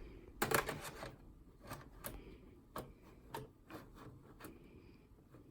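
Clicks and knocks of a DVD drive being handled and fitted into a desktop PC case's drive bay: a short clatter about half a second in, then a string of single sharp clicks at irregular intervals.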